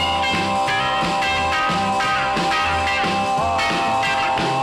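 A 1955 Bal Ami Model G jukebox playing a rock and roll record: an instrumental passage with guitar and a steady beat, no singing.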